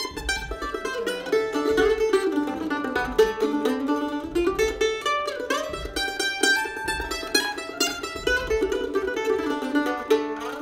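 Solo F-style mandolin picked in quick, continuous runs of notes, warm-up playing with no accompaniment.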